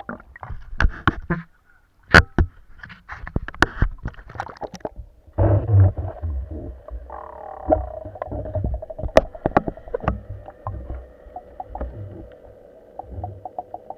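Water sloshing and gurgling with a low rumble and many irregular knocks and clicks. A fast, even ticking starts near the end.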